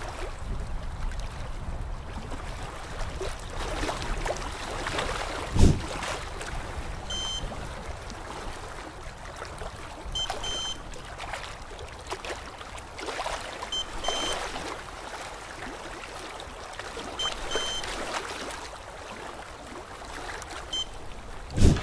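Dental LED curing light beeping while it hardens bracket adhesive: short high beeps about every three and a half seconds, several in quick pairs, over a steady watery hiss. Two dull thumps, one about five and a half seconds in and one near the end.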